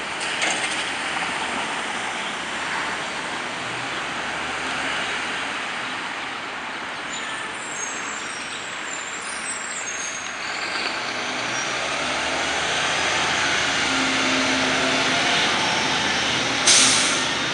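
Garbage truck's diesel engine running as it drives off and passes, with traffic noise, rising in level toward the end. Near the end comes a short, loud hiss of air brakes.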